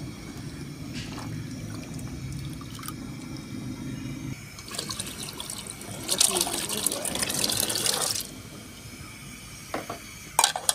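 Soaked chickpeas and their water poured from a plastic basket into an aluminium pot of water: a splashing rush lasting about three and a half seconds from just before the middle, over a low steady hum. A few sharp clicks near the end.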